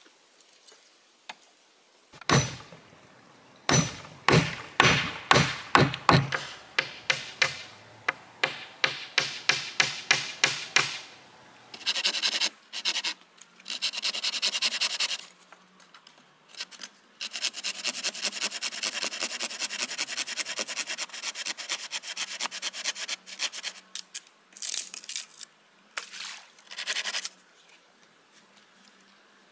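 Hand-tool work on wood: a loud knock, then a run of sharp chopping strikes about two a second that grow fainter, followed by stretches of rasping, scraping strokes.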